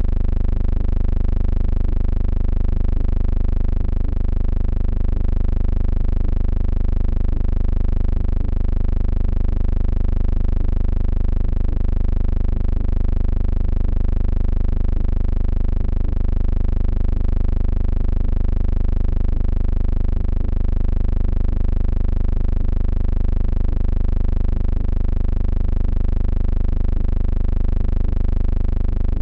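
A steady, unchanging low hum that does not rise, fall or break.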